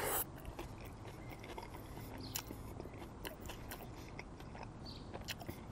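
A bite into a breaded fried chicken sandwich right at the start, then closed-mouth chewing with many small clicks and crunches.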